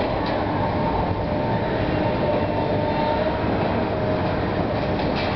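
Caterpillar hydraulic excavator working a demolition grab in the wreckage of a timber building: a steady diesel engine rumble with a faint whine, and a crack or knock just after the start and another near the end as the grab works the debris.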